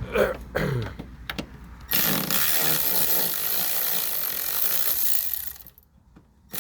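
Cordless electric ratchet running, spinning out a 10 mm bolt: a loud steady motor whir that starts about two seconds in and cuts off suddenly near the end, after a few handling clicks.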